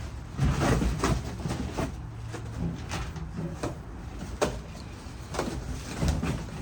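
Handling noises of a boxed aluminum diamond-plate tool box being pulled from its cardboard packaging: irregular scraping and rustling with a few knocks, the sharpest about four and a half seconds in.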